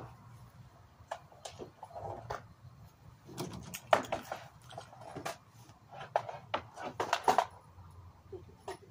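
Irregular knocks and clatter of power tools and plywood boards being handled and set down, busiest in the middle of the stretch.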